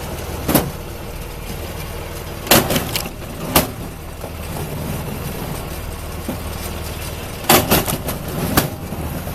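A machine's engine running steadily, with sharp knocks or cracks: one about half a second in, a few around the third second, and another cluster near the end.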